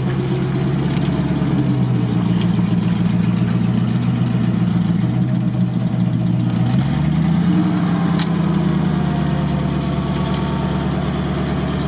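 GAZ-66 truck's engine running steadily at low revs as the truck crawls through deep mud, the revs rising about seven seconds in and holding higher.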